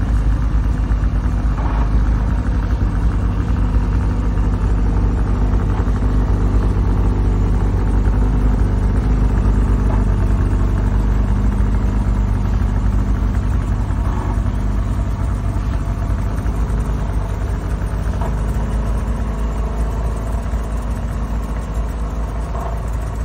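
2024 Arctic Cat Catalyst snowmobile's two-stroke engine idling steadily.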